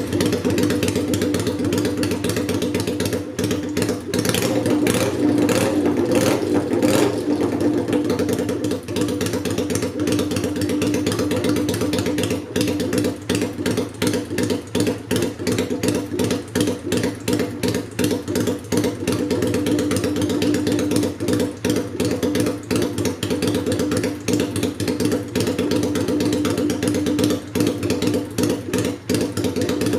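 Kawasaki Vulcan 400 Classic V-twin running at idle through open, hand-bent stainless shotgun straight pipes with no silencer, as a rapid, steady train of exhaust pulses. The revs briefly pick up about four to seven seconds in. It runs with no air cleaner and the carburettor on its stock settings.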